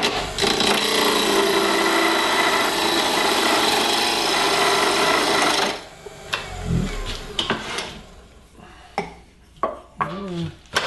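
Turning tool cutting into a wooden waste block spinning on a wood lathe, a steady dense scraping as the block is shaped into a jam chuck. The cutting stops about six seconds in, leaving quieter handling with a low thump and a few light knocks.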